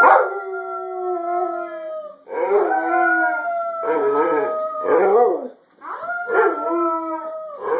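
White Labrador retriever howling: three long howls, each sliding slowly down in pitch, with brief breaks between them.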